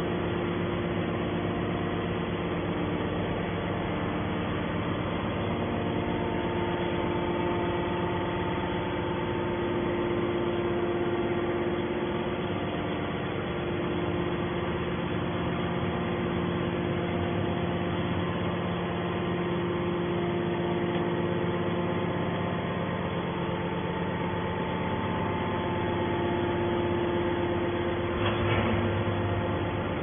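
Hydraulic metal-scrap baler running with a steady, even hum. A short noisy clatter comes near the end.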